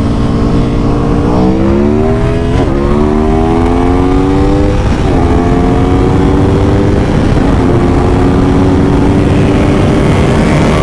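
Aprilia Tuono Factory's V4 engine accelerating hard. The revs climb, drop at an upshift about two and a half seconds in, climb again and drop at a second upshift about five seconds in, then run on steadily at speed. Wind rushes over the microphone throughout.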